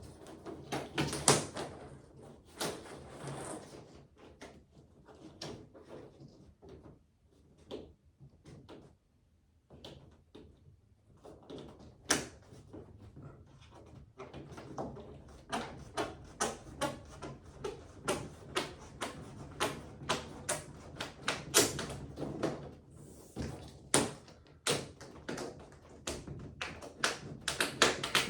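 Irregular taps and knocks of the locking strip being worked and pressed into the display panel's edge by hand. The knocks thin out to a short lull, then come thick and fast.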